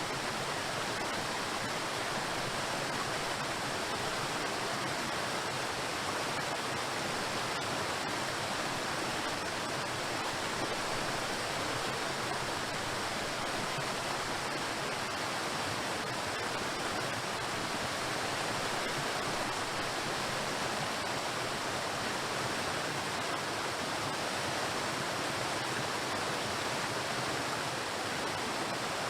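Waterfall: water falling and crashing against rocks in a steady, even rush with no breaks.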